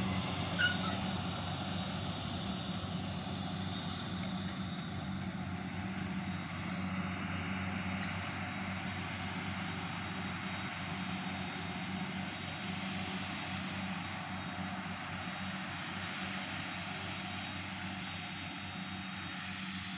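Forage harvester's diesel engine and chopping unit running under steady load, heard from inside the cab, with a brief click about half a second in.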